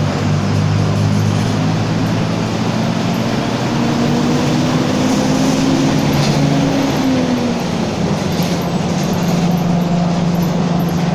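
Mercedes-Benz OF-1722M city bus running, with its differential growling under the engine's drone: several steady tones, one drifting up and then back down about halfway through.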